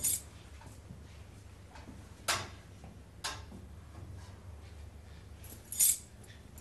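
A few sharp clicks and knocks, spaced one to two seconds apart and loudest near the end, over a faint low hum.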